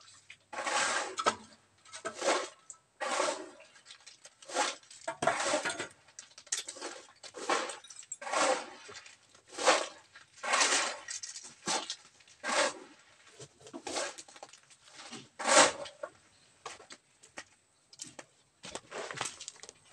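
Shovels scraping into a gravel pile, with a short gritty crunch at each scoop, about one a second and unevenly spaced.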